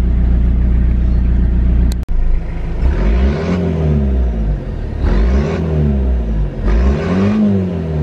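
Toyota Surf's 2L-TE 2.4-litre four-cylinder turbo-diesel idling steadily, then, after a short break about two seconds in, free-revved three times, about two seconds apart, each rev rising and falling in pitch. It runs smoothly, without misfires, on a roughly 50/50 blend of filtered waste engine oil and diesel.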